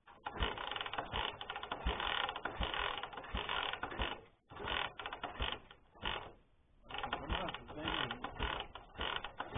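Ural M-61 side-valve flat-twin engine being kick-started over and over: clanking of the kickstarter and sharp knocks as the engine turns over in several bursts with short pauses between kicks, but it does not settle into running.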